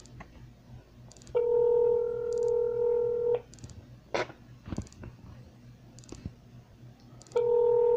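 Telephone ringback tone from the phone: a steady two-second ring, then about four seconds of silence, then the next ring starting near the end. The called line is ringing and has not yet been answered.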